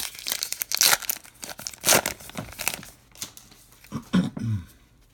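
Foil wrapper of a 2019 Topps Allen & Ginter baseball card pack being torn open and crinkled by hand, a run of sharp rips over the first three seconds, loudest about one and two seconds in.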